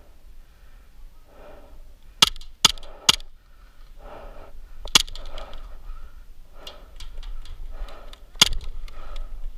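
Airsoft gunfire: five sharp single cracks, three in quick succession about two seconds in, one near the middle and one near the end. Between them, heavy breathing close to the microphone.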